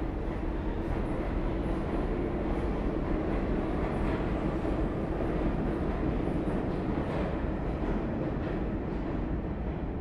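New York City subway train running on the rails: a steady, dense low rumble that swells slightly in the middle.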